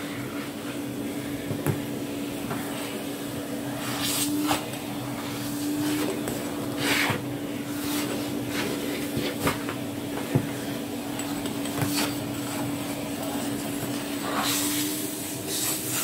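Thick cloth vacuum-cleaner bag rustling and brushing against a wooden table as it is handled and folded, with a few small knocks. A steady low hum runs underneath.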